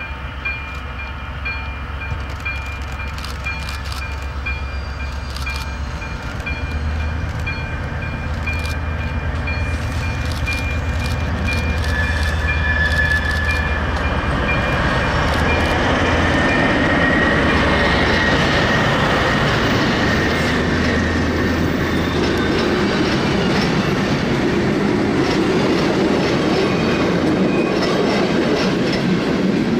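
DR class 119 diesel-hydraulic locomotive approaching, its engine a steady low drone. From about halfway the train draws level and the rolling noise of wheels and wagons grows louder, with some clickety-clack, while the engine drone falls away in the last third.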